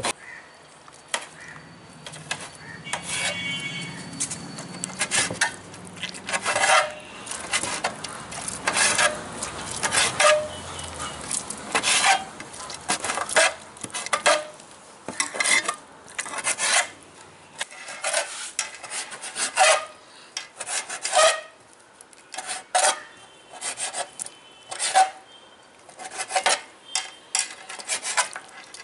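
Kitchen knife cutting boiled goat tripe and intestine on a metal plate: the blade knocks and scrapes against the plate in irregular strokes, about one a second.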